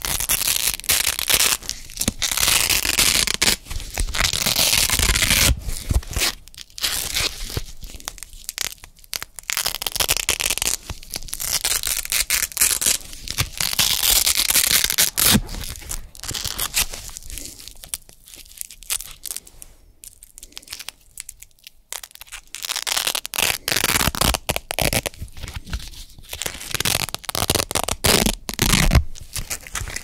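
Hook-and-loop (Velcro) strips being repeatedly peeled apart and pressed back together close to the microphone: a super crunchy ripping that comes in strokes from under a second to a few seconds long, with short pauses between.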